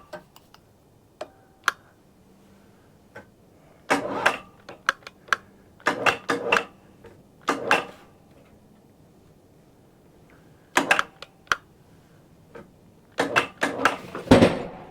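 Irregular clanks and knocks of a log being turned over on a portable band sawmill's bed, in scattered clusters of sharp hits with quiet gaps between, the loudest near the end.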